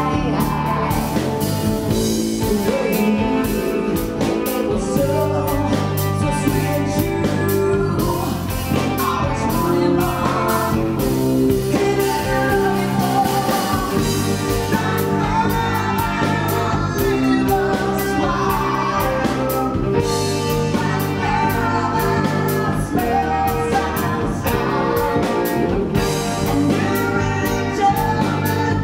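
Live country band playing a song: a woman singing over fiddle, electric guitars and a drum kit.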